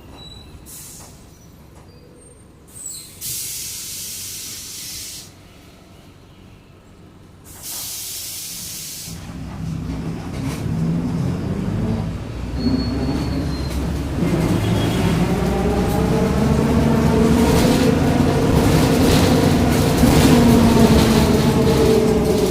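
Two loud bursts of compressed-air hiss from a city bus's pneumatic system, then the Mercedes-Benz OF-1722M bus pulls away and its drivetrain builds up, with a growling whine from the differential that climbs in pitch as the bus gathers speed and then holds.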